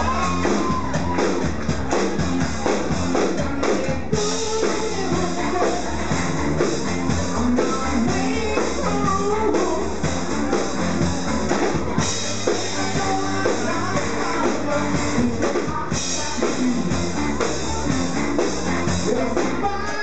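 Live rock band playing at full volume: drum kit keeping a steady beat under electric guitars and bass, with a singing voice over the top.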